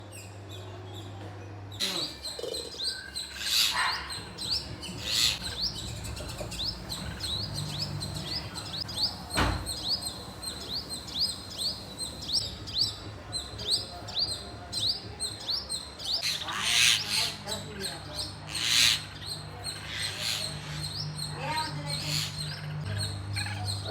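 Pet birds chirping: a quick run of short rising chirps, about three a second, with louder calls now and then, over a low steady hum.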